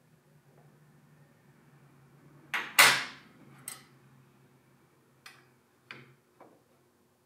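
Knocks from handling wood or tools: a loud double knock about two and a half seconds in, then a lighter one, and three small knocks near the end, over a faint low hum.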